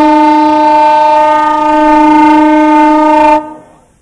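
Train horn sounding one long, steady, loud note that cuts off sharply about three and a half seconds in.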